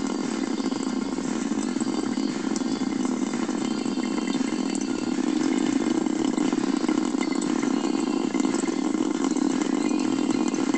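Kitchen faucet running a thin stream of water into the sink, a steady rushing noise.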